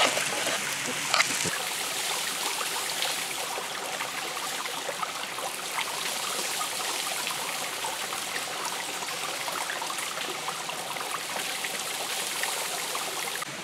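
Shallow stream running over rocks and pebbles, a steady trickling rush of water, with one short click about a second in.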